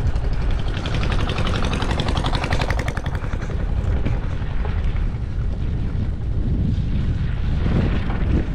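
Wind buffeting the microphone over the rumble of a gravel bike's tyres on a rough off-road track, with a fast run of fine ticks from about half a second in until about four seconds in.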